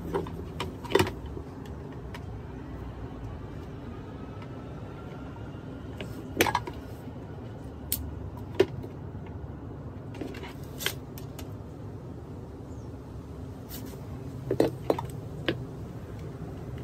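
Scattered sharp clicks and knocks of hand tools and metal parts against a vintage Century fan's motor housing as it is worked apart, a few at a time, over a steady low background hum.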